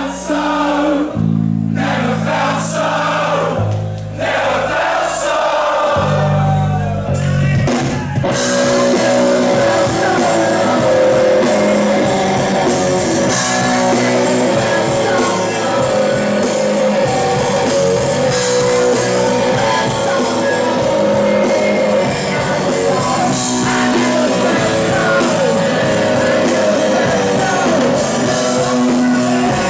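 Live rock band playing with a male lead singer. For about the first eight seconds there is a sparse passage of low bass notes under the voice. Then the drums and guitars crash in and the full band plays on.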